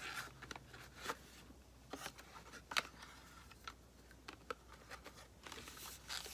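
Faint handling of a small paperboard box: scattered light clicks and scrapes as its cardboard flap is pulled open, with a longer rubbing scrape near the end.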